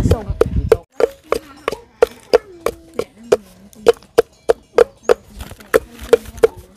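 Knife chopping steadily on a wooden chopping board, about three even strokes a second, as when mincing food by hand.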